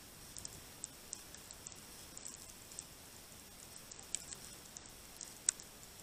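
Small birds pecking at seed on a snowy feeder table: a scattering of light, irregular high clicks and ticks, with one sharper click about five and a half seconds in.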